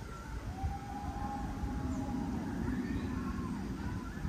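Riders screaming in long, wavering cries over the rumble of a wooden roller coaster train running on its track.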